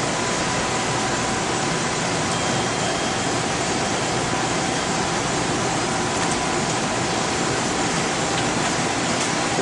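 Steady rushing noise of equipment cooling fans and air handling, unchanging in level, with faint steady tones running through it.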